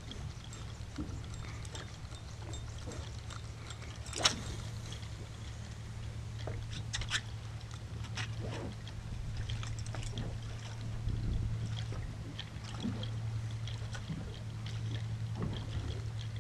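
Boat motor running steadily with a low hum, under scattered light clicks and a faint wash of water; one sharp click stands out about four seconds in.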